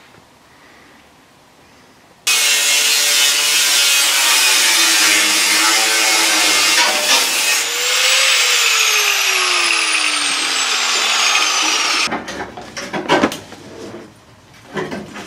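Angle grinder with a cutting disc slicing through rusty steel of a van's wheel arch, starting suddenly about two seconds in and running for about ten seconds, its whine falling in pitch over the last few seconds as it winds down. Then a run of sharp knocks and metal clatter as the cut section is worked loose.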